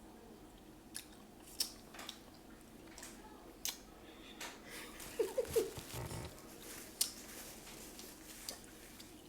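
Close-up eating sounds: chewing and biting with scattered sharp crunchy clicks, and a few brief pitched squeaks about five seconds in.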